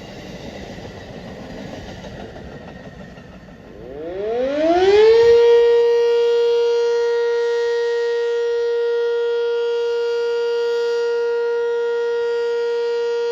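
Passing train noise fades out. About four seconds in, a Sentry 10V electromechanical siren winds up, its pitch climbing for over a second, then holds a loud, steady tone.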